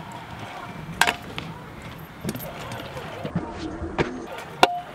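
Stunt scooter's wheels rolling on a concrete skatepark bowl, with a sharp metallic clack about a second in and another near the end as the scooter strikes the concrete on a trick and landing.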